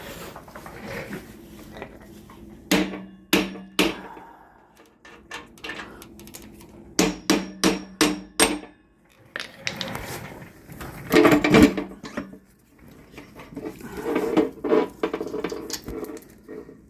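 Hammer strikes on metal while fitting a motorcycle's front wheel, in short bunches of several blows, each ringing briefly.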